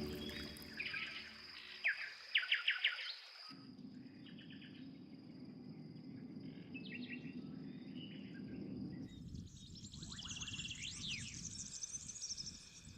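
Natural ambience of small birds chirping and calling over a steady high insect trill. The background changes abruptly about three and a half seconds in and again around nine seconds.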